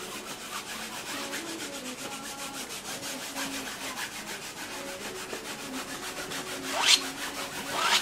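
Paintbrush rubbing and scrubbing oil paint onto a stretched canvas in steady strokes, with two louder sweeping strokes near the end.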